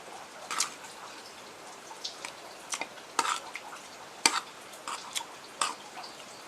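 Close-up eating sounds from a bowl of noodle soup with quail meat: about nine short, sharp clicks and smacks at irregular intervals, over a faint steady hiss.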